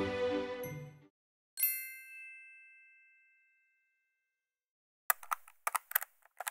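Background music ending about a second in, then a single bright chime, a logo sting, that rings out and fades over about two seconds. Near the end comes a run of quick, uneven clicks, a typewriter sound effect.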